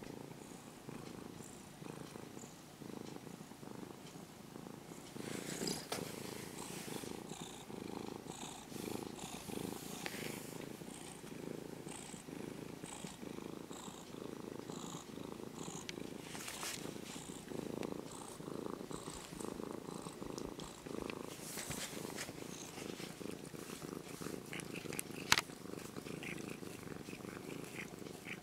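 Orange-and-white cat purring steadily right at the microphone while being stroked, with soft rustles of a hand moving over its fur. A single sharp click stands out late on.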